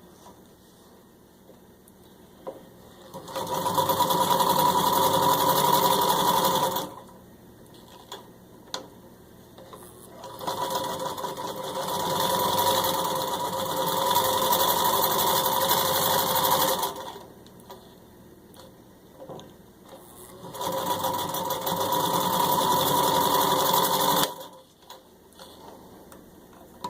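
Electric-driven Singer 66-16 sewing machine stitching through six layers of denim in three runs of a few seconds each, the second run building up speed over its first couple of seconds. Small clicks in the pauses between runs.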